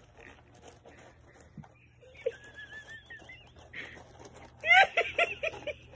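Faint scraping and knocking of a cardboard cereal box as a dog moves about with its head stuck inside it, with a brief high wavering whine a little after two seconds in. About five seconds in, a person laughs in a quick run of short bursts, the loudest sound here.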